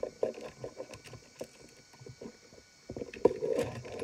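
Plastic toy train cars being handled on a tabletop: irregular small clicks and knocks of plastic, sparse in the middle and busier near the end.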